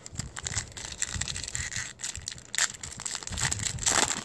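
Crinkling and crackling of a trading-card booster pack's foil wrapper as it is handled and crumpled, loudest near the end.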